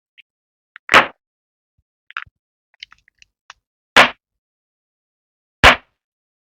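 Slime popping three times, each pop short and loud, about one and a half to three seconds apart, with faint sticky clicks and crackles between the first two.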